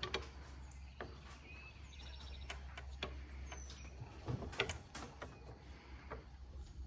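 Scattered light knocks and clicks of handling in a workshop, with a few faint bird chirps over a steady low hum.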